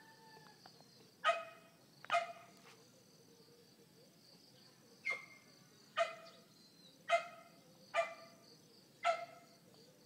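A dog barking repeatedly, short sharp barks about once a second with a pause of a couple of seconds partway through. A steady high insect drone runs underneath.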